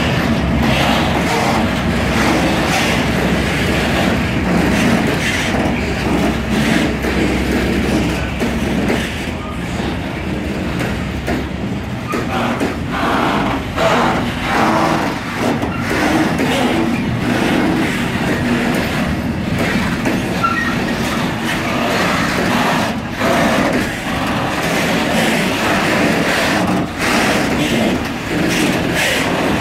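A slow freight train of open steel freight wagons rolling past, its wheels rumbling and clattering on the track with many short knocks. A low rumble fades away over the first eight seconds or so.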